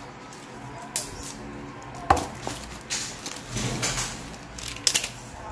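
Pechay leaves being handled in a plastic tub: a few sharp knocks against the tub, the loudest about two seconds in, and a stretch of leaf rustling in between.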